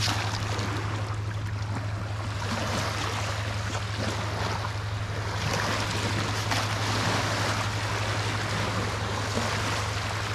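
Barge wake waves washing and sloshing at the river's edge and through a sifting screen, a steady rushing with a low hum underneath.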